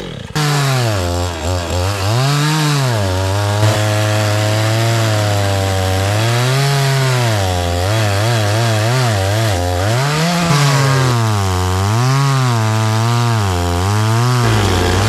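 Engine running with its speed rising and falling over and over, fluttering quickly up and down a little past the middle.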